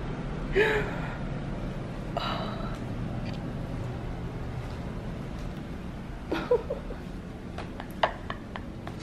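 A woman gasping in surprise, with a few short breathy voice sounds and no words, over a steady low hum. A few sharp clicks come near the end.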